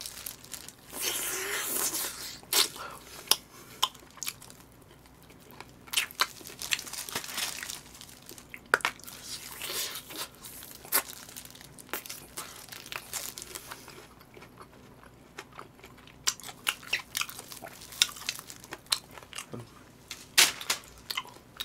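Close-miked eating of crispy fried chicken: irregular crunches of the batter between bites and stretches of chewing.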